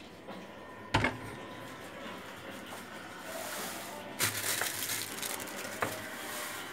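An aluminium pot knocks once as it is handled. A gas stove burner is then lit under it: a few clicks, then the steady rushing hiss of the flame with a low hum beneath.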